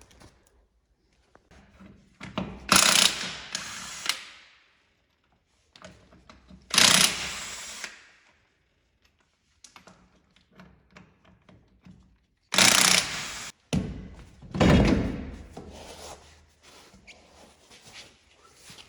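Shop tool work: four loud bursts of about a second each, from a power tool run briefly, with knocks and clatter between.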